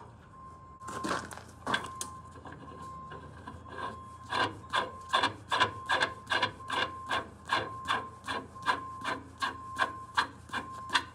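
A steel hex nut being spun by hand down the threads of a freshly lubricated bolt, clicking with each turn. A few scattered clicks come first, then from about four seconds in they settle into a steady run of about three to four a second.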